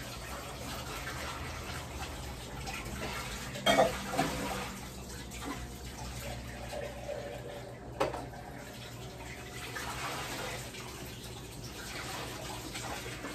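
Water running steadily, with a few short knocks about four seconds in and again about eight seconds in.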